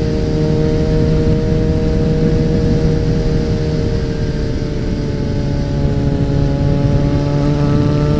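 Suzuki Bandit 650N's inline-four engine pulling the bike along through a loud aftermarket exhaust, with wind rushing past the bike-mounted camera. The engine note holds steady, eases slightly, then rises as the bike accelerates near the end.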